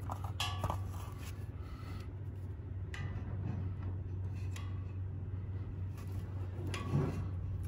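Light metallic clicks and scrapes as pliers and wire work a bolt up through a hole in a steel bumper: a few separate ticks, the strongest near the end, over a steady low hum.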